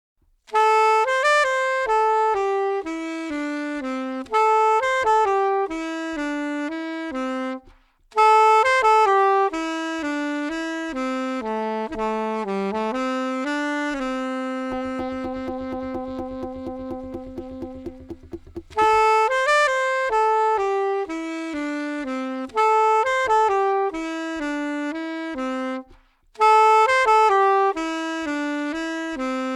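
Solo saxophone playing a slow, relaxing melody in phrases with short breaks between them, including a long held low note about halfway through that pulses rapidly.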